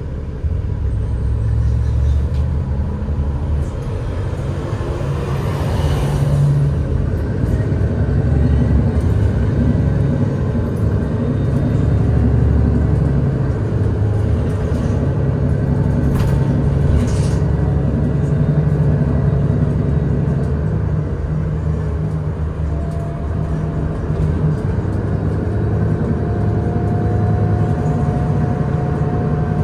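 Cabin ride noise of a 2021 Nova Bus LFS hybrid city bus under way: a steady low drivetrain and road rumble. A brief rattle comes about halfway through, and a faint motor whine joins in near the end.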